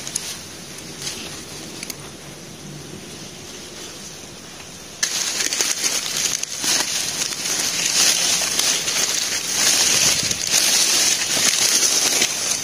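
Dry sugarcane leaves rustling and crackling as a hand works through them around a trap set. Faint at first, then much louder and denser from about five seconds in.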